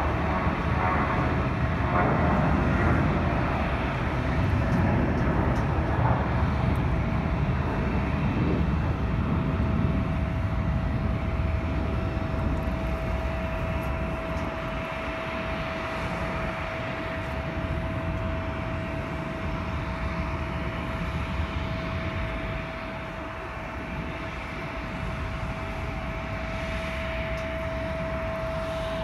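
Jet airliner engines running at low power, a steady rush with a single whining tone that comes in about eight seconds in and holds.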